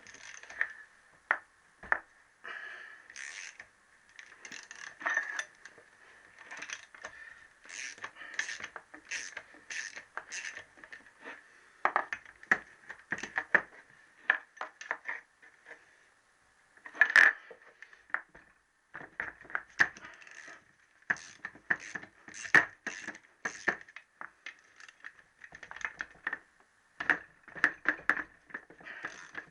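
Socket ratchet clicking in quick runs as nuts are undone on the crankcase of a Triumph T120R Bonneville engine, with metal clinks of the tool on the casing and a sharper metallic knock about seventeen seconds in.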